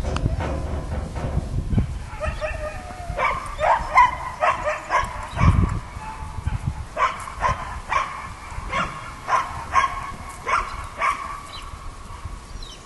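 A dog barking and yipping over and over, about two short barks a second, starting about two seconds in. A low rumbling noise comes near the start and again about halfway through.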